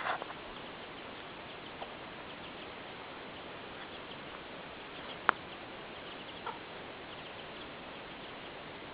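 Faint, scattered high chirps from chickens over a steady hiss, with one sharp click about five seconds in.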